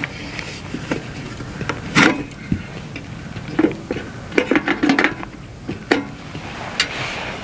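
Irregular clinks and knocks of camp gear being handled, about a dozen sharp strikes with the busiest stretch in the middle, over a steady background rush.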